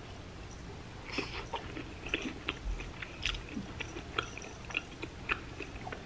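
A person chewing a mouthful of deep-fried ham-and-cheese croquette crusted with crushed Cheetos Puffs: soft, irregular crunching and clicking chews, starting about a second in.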